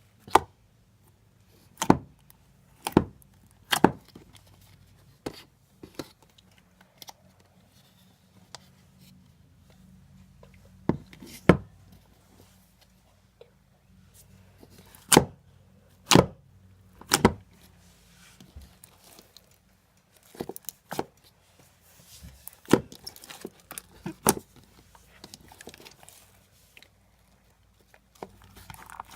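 Sharp, irregular clicks and knocks, about twenty of them in uneven clusters, with quiet stretches between.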